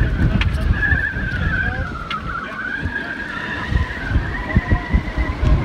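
Gale-force wind buffeting the phone's microphone on a sailing yacht, a heavy rough rumble with gusty surges, over which a high wavering whistle slides up and down in pitch.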